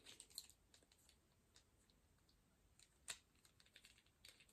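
Near silence with a few faint clicks of plastic toy parts being handled and pushed together on a transforming robot figure, one click more distinct about three seconds in.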